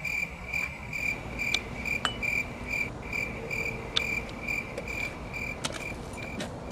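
Cricket chirping: a steady run of short high chirps, about two and a half a second, that stops near the end, used as the comedy 'crickets' effect for an empty silence. A few faint clicks are scattered through it.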